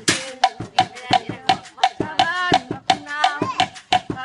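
Thai folk ramwong rhythm played on homemade percussion: an even tapped beat of about three strokes a second, with a gliding melody over it.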